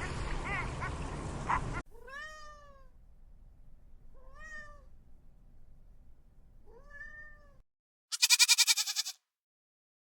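A domestic cat meowing three times, each meow rising then falling in pitch, a couple of seconds apart. Before it, ducks or geese calling over background noise stop abruptly, and near the end one loud wavering bleat is heard.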